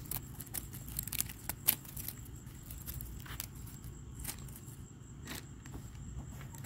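Dry okra seed-pod husk crackling and tearing in the fingers as it is broken up for mulch: irregular small sharp crackles over a low, steady background rumble.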